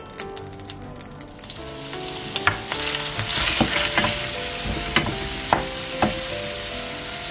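Chopped onions sizzling in butter and olive oil in a stainless steel frying pan, the hiss building up about two seconds in and holding steady. A wooden spoon stirs them, knocking against the pan several times.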